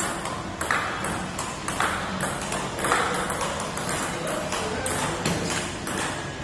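Table tennis ball clicking back and forth between paddles and table in a steady blocking rally, about two or three hits a second.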